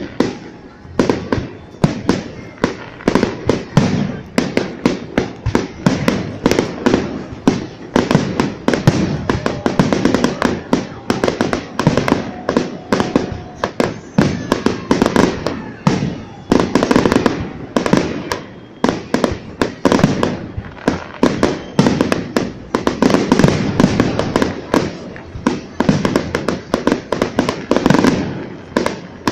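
Aerial fireworks shells bursting overhead in a dense, unbroken string of bangs, several a second.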